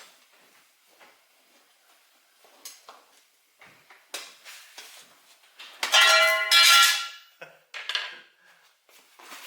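Small clicks of tools and parts being handled, then about six seconds in a loud metal clatter that rings for about a second, followed by a few lighter clinks.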